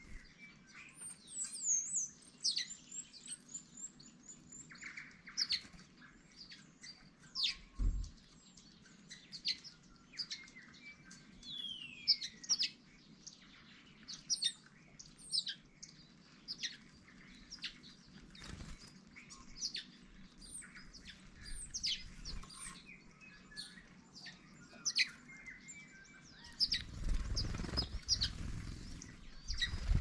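House sparrows and silvereyes (waxeyes) chirping and twittering: many short, high chirps and quick down-sliding notes, with a flutter of wings near the end.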